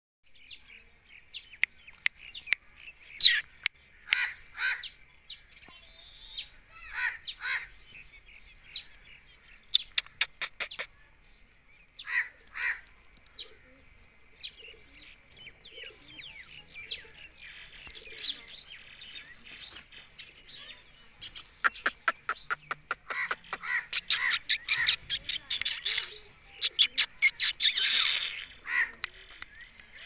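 Rose-ringed parakeet chirping and calling in short, sharp notes, with quick runs of rapid clicking chatter about ten seconds in and again from about twenty-one seconds, the calling getting busier toward the end.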